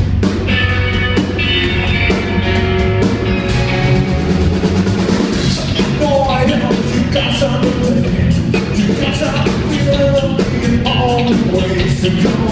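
A rock band playing live, with electric guitars over a drum kit keeping a steady beat; a melodic lead line stands out from about halfway through.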